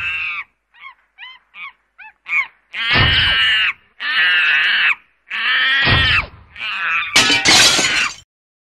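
Monkey-like calls voicing an animated monkey: a run of quick short hoots, then four longer, loud calls of about a second each, stopping just before the end.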